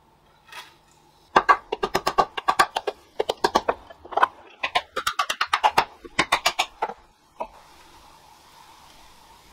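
A fast run of short rubbing or scraping strokes, about six a second in several groups, stopping near the end. It fits beeswax being rubbed hard around the pole lathe's centres and the blank's centre holes, as lubrication so the blank stops jumping off while it spins.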